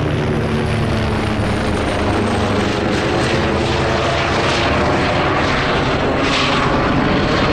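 UH-60M Black Hawk helicopter running near the field: a steady, loud drone of rotor and turbine engines. A faint high whine falls slightly in the first couple of seconds.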